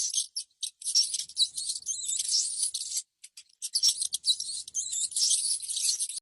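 High-pitched chirping, all treble and no low end, in a pattern that repeats about every three seconds and cuts off abruptly at the end.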